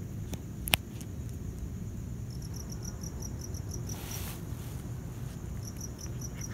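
Cricket chirping in a steady high pulse, about five chirps a second, starting a couple of seconds in and pausing briefly before resuming. A single sharp click comes about three quarters of a second in, and a short rasping noise around four seconds in.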